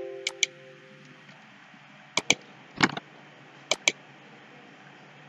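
Computer mouse buttons clicking in quick press-and-release pairs, about four times, as duct segments are placed in Revit. At the start, the ringing tail of a computer chime fades away over the first second.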